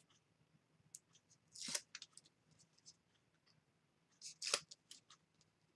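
Faint handling of paper and double-sided tape on a craft desk: two short rasps about three seconds apart, with light ticks and taps between.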